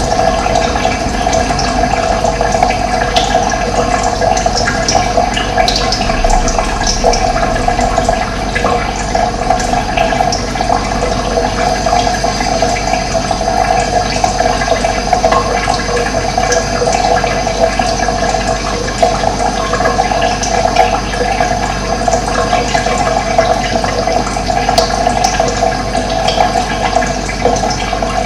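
Running water flowing steadily, with brief high chirps of birds scattered over it.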